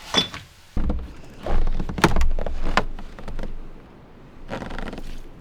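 Several clunks and knocks of a cooking pot and its lid being handled and set down, bunched between about one and three and a half seconds in, with a short rustle near the end.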